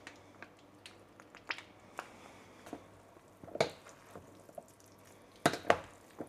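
Mayonnaise squeezed from a soft pouch onto a beet salad, then two forks tossing the salad in a plastic tub: soft squelches and scattered clicks and taps of the forks against the plastic, the loudest pair near the end.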